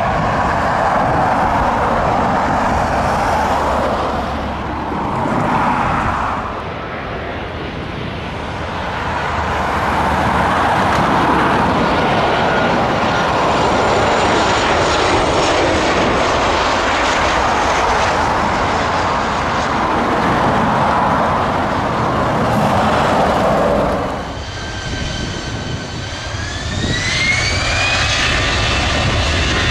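Jet airliner engines running with a loud, steady rush. About 24 seconds in, the noise drops, then a high whine rises in pitch and holds as the engines spool up.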